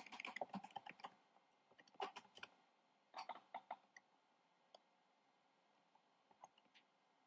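Faint computer keyboard typing in a few short runs of keystrokes during the first four seconds, then a handful of isolated clicks.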